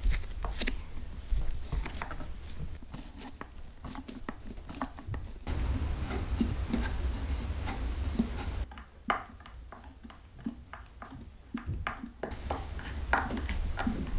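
Scattered light clicks and taps of metal fittings and wooden chair parts being handled while a chair is put back together with its original hardware. The background hiss changes abruptly a few times.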